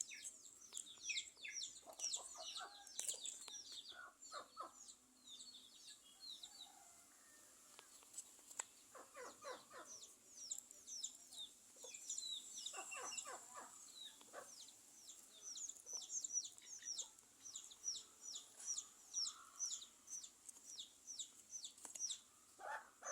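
Faint backyard birdlife: chickens clucking now and then among rapid, high chirps of small birds.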